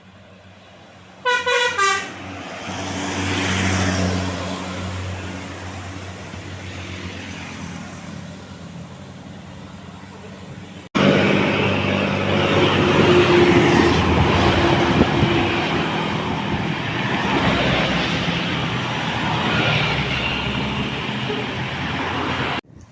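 A tour bus's multi-tone 'telolet' horn plays a quick run of short toots, then the bus's diesel engine works past, climbing a grade. After a sudden cut, another passing bus's engine and road noise is loud and steady for about ten seconds before cutting off.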